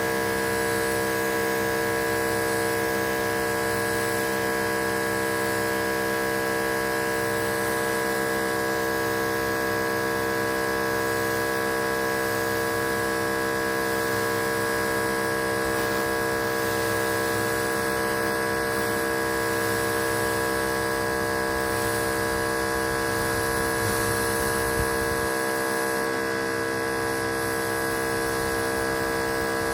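Pressure washer running steadily, a constant humming drone that holds one pitch throughout.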